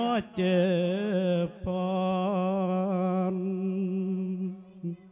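A Buddhist monk singing a Thai lae sermon chant: one male voice in long, wavering held notes with short breaths between phrases, trailing off near the end.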